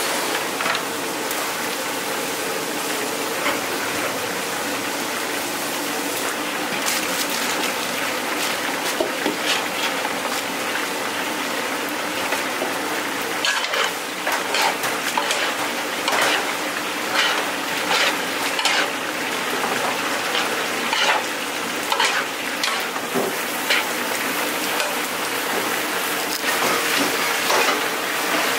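Sauce sizzling steadily in a large nonstick frying pan while sliced vegetables are stirred through it. A steel bowl clanks and scrapes against the pan over and over, most busily about halfway through.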